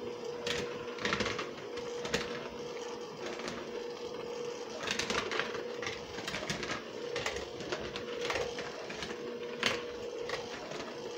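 Handheld electric mixer running with a steady motor hum, its beaters clicking and scraping against a plastic bowl as they blend shortening into a crumbly flour-and-oil mix.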